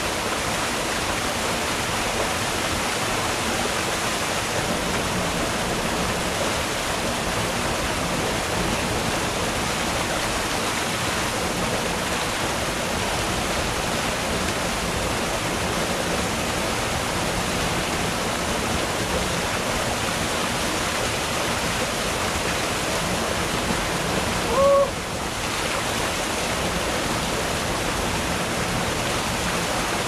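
Small waterfall pouring over boulders into a rocky stream pool: a steady rush of water. Near the end, a single short high-pitched sound rises briefly above the water.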